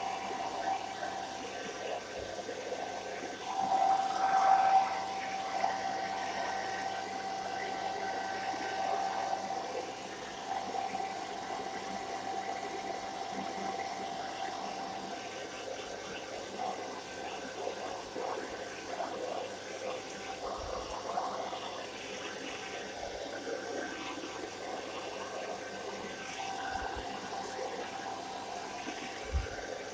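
Handheld hairdryer running on its lowest speed and heat setting: a steady rush of air with a steady whine in it, briefly louder about four seconds in.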